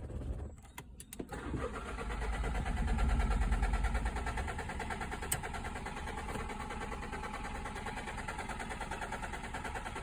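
Mini Cooper's BMW B38 three-cylinder turbo engine cranking briefly and catching about a second and a half in. The revs flare up and then settle to a steady idle.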